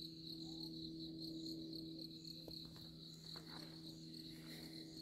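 Evening chorus of crickets, a steady high trill, with a faint low steady hum underneath.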